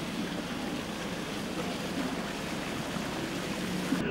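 Steady rushing noise of water, even and unbroken.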